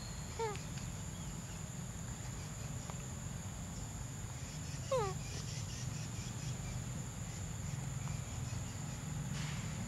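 Two short squeaky animal calls, each falling in pitch, about five seconds apart, the second louder. Under them run a steady high insect drone and a low hum.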